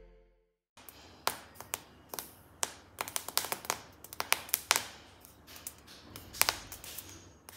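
Whole grains dry-roasting in a hot cast iron pan, crackling and popping in irregular sharp clicks that come thicker in the middle.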